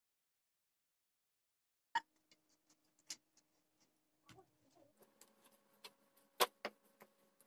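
Faint clicks and taps of hands pinching dough off a steel plate and handling it on a wooden rolling board. Dead silence for the first two seconds, then a sharp click and scattered ticks, and a faint steady hum joins about five seconds in.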